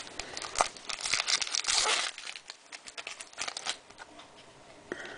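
Foil wrapper of a trading-card pack being crinkled and torn open by hand, in bursts: busiest over the first two seconds, with another short burst a little after three seconds.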